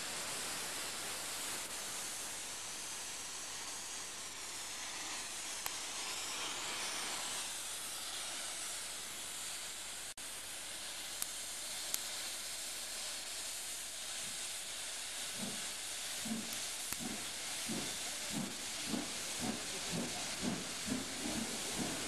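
Steady hiss of steam blowing off from steam locomotive No. 90733, a WD Austerity 2-8-0. About two-thirds through, a low rhythmic beat of about two a second joins in as the train rolls past.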